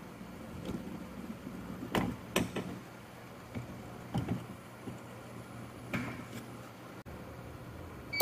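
Automated mechatronics training station returning to its home position on reset: a handful of separate sharp clicks and knocks from its pneumatic actuators moving, over a low steady hum.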